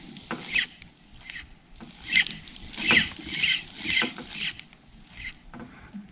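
Sea water lapping and splashing against the side of a small fishing boat in irregular surges, with a few light knocks.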